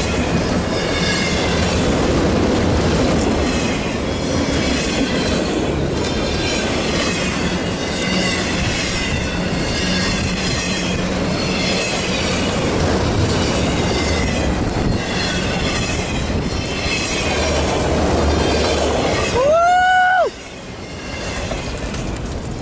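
Freight train rolling past at close range, its cars' wheels clattering steadily over the rails under a low engine hum. Near the end a short pitched whine rises and falls, then the sound drops suddenly.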